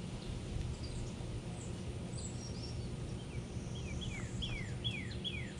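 Wild songbirds: a few high chirps, then a bit past halfway one bird starts a song of repeated whistled notes, each sliding steeply down in pitch, about two and a half a second. Under it runs a steady low rumble of background noise.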